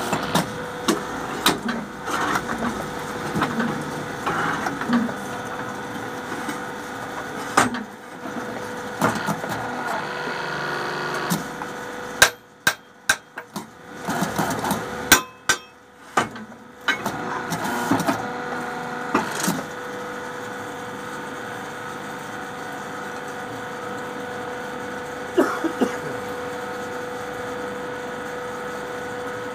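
Electric motor and hydraulic pump of a brick-making machine's power pack running with a steady hum. Irregular knocks and clatter from the press and the bricks being handled sound over it, a few of them sharp and loud; in the last third only the steady hum is left.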